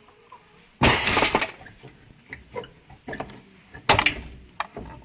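A wooden egg-collection hatch on a hen coop being worked open, with clattering knocks and scrapes: a loud rattling scrape about a second in, a sharp knock near four seconds, and smaller clicks between.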